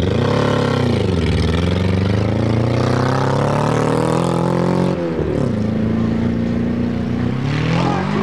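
Race vehicle engine at high revs on an off-road track, its pitch climbing through a long pull, dropping sharply about five seconds in, holding, then climbing again near the end.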